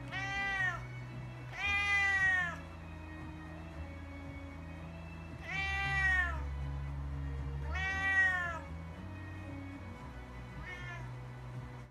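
Domestic cat meowing: four loud, drawn-out meows in two pairs, each rising then falling in pitch, and a faint short meow near the end.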